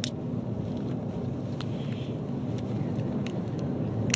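Steady low road and engine rumble inside a moving car, with a few small clicks.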